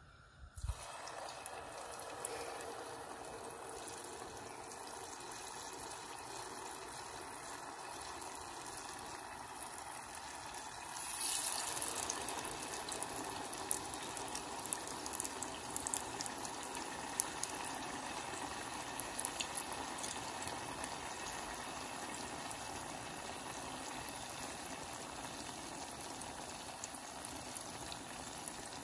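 Battered banana chunks deep-frying in hot oil: a steady sizzle with scattered crackling pops. It starts about a second in and gets louder about a third of the way through.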